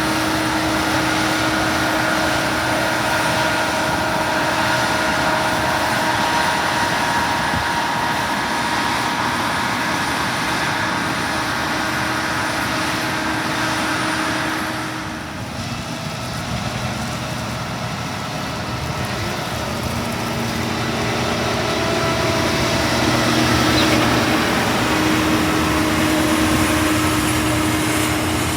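Case IH 2388 combine running in the field: a steady machine drone with several held tones. The sound changes about halfway through and swells again near the end.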